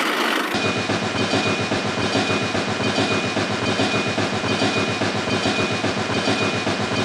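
A small motor-driven model machine running with a rapid, even clatter and a steady high whine, starting suddenly about half a second in.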